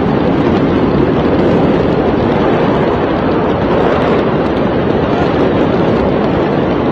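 A loud, steady rushing noise with no distinct bangs or voices.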